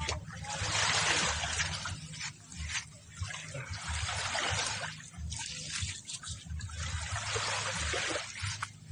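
Small waves washing up and running back on a sandy shore, a hiss that swells and fades about four times.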